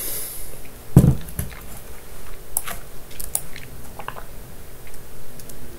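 A few scattered small clicks and one thump about a second in, close to the microphone.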